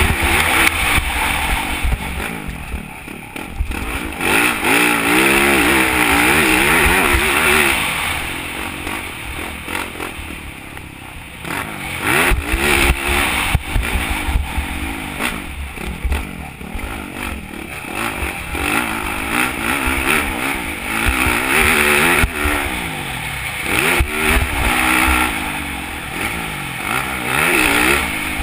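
Motocross dirt bike engine revving hard, its pitch rising and falling again and again as the throttle is worked through the track, easing off for a few seconds about ten seconds in.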